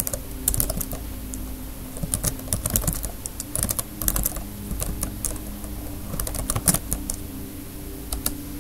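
Typing on a computer keyboard: clusters of quick key clicks with short pauses between them, over a low steady hum.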